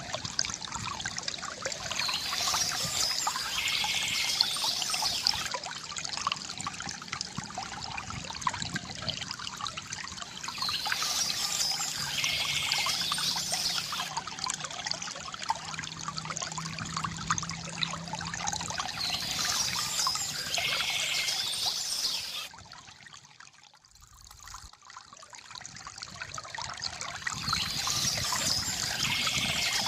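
Stream water trickling and pouring over stones in a steady rush. The same stretch of sound repeats about every eight to nine seconds, and it drops away briefly about three-quarters of the way through before swelling back.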